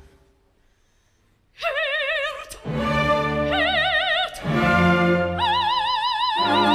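A dramatic pause of near silence for about a second and a half, then a coloratura soprano with full orchestra sings short forceful phrases with wide vibrato, ending on a long high held note.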